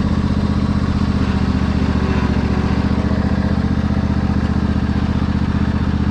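Riding lawn mower's newly swapped replacement engine running at low idle: a steady, even chugging with no change in speed.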